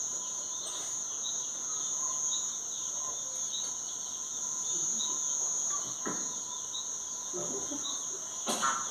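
Night-time chorus of crickets: a steady high-pitched trill, with a softer chirp repeating about twice a second. A faint knock about six seconds in.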